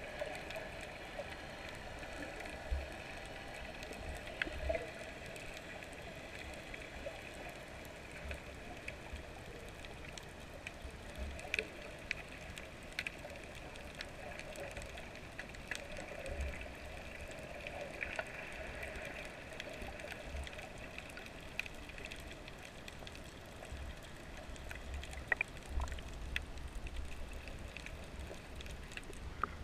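Underwater ambience picked up by a camera held under the sea: a steady muffled hiss with a faint hum, scattered sharp clicks and irregular low thumps.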